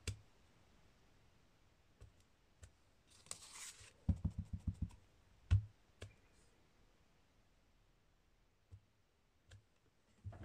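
Handling sounds of stamping with a clear acrylic stamp block: a short rustle about three seconds in, then a quick run of about six light taps and a thump. After that only a few faint ticks.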